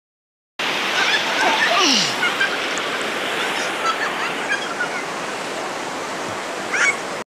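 River water splashing and rushing close to the microphone as it moves through a swimming pool at water level, with a few faint short high squeaks and chirps over it. The sound starts suddenly about half a second in and cuts off just before the end.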